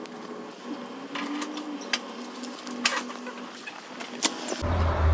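Quiet supermarket ambience: a faint hum with a few sharp clicks and knocks spread through it. A low rumble sets in near the end.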